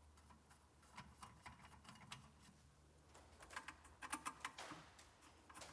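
Faint scattered clicks and light taps of handles being fitted onto the metal frame of a corner cabinet pull-out unit, busier in the second half.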